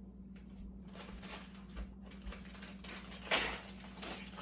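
Quiet room tone with faint handling of snack packaging, and one short rustle of packaging about three seconds in.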